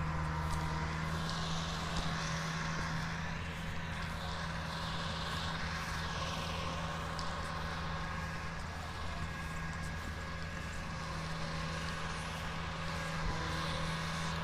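Kubota crawler combine harvester running steadily while harvesting rice: a constant low engine hum with a hiss above it that swells and fades.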